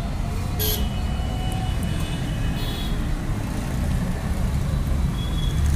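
Steady low rumble of street traffic, with two short rasps of PVC electrical tape being pulled off its roll, about half a second and two and a half seconds in, as wire joints are taped.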